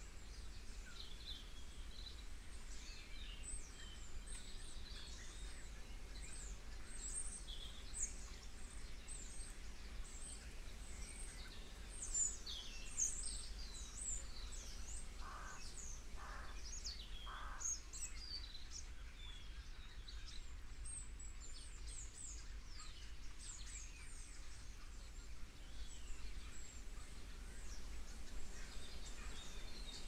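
Many small birds calling at once in a tree: a busy stream of short, high, falling chirps and twitters, with three lower calls about a second apart around the middle. A steady low rumble sits underneath.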